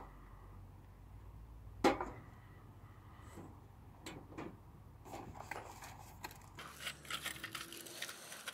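Handling noises from unpacking a Coleman portable grill. A few light knocks and clicks of its metal parts come first, the sharpest about two seconds in. From about six and a half seconds there is a run of crinkling and rustling as the packaging is handled.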